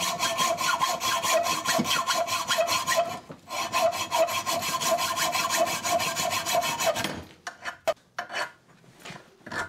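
Hacksaw sawing through a steel shotgun barrel clamped in a vise, in quick, even back-and-forth strokes with a brief break a little past three seconds. The sawing stops about seven seconds in, and a few light knocks follow.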